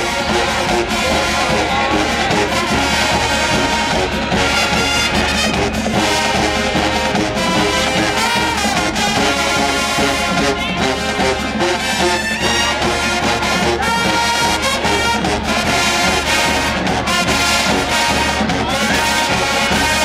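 HBCU show-style marching band playing: brass (sousaphones, trumpets, trombones) over snare and bass drums and cymbals, loud and continuous.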